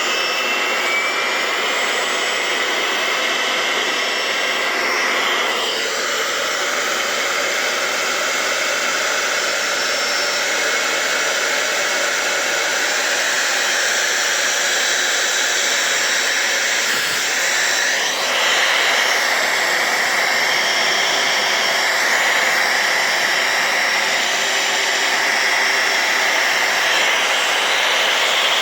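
Brushless DC air-blower motor running on test after repair of the motor and its driver board: a steady rush of air with a whine over it. The pitch shifts down about six seconds in and rises again around eighteen seconds, as the motor's speed changes.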